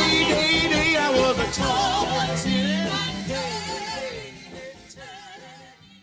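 Early-1960s rhythm-and-blues record, with a wavering lead vocal over the band, fading out: the music drops away steadily over the last three seconds until it is almost gone.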